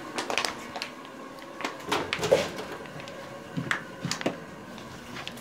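Scattered clicks, knocks and rustling of handling and moving about indoors, about ten irregular knocks with the sharpest a little after two seconds.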